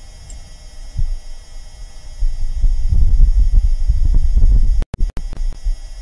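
Low rumbling gusts of wind on Mars, picked up by the Perseverance rover's microphone. The rumble swells about two seconds in and cuts out twice, very briefly, near the end.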